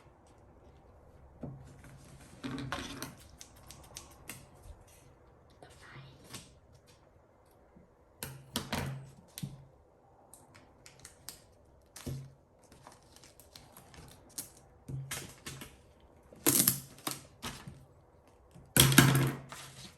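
Scissors snipping and paper being handled: a run of short clicks and rustles, with a few louder rustles later on.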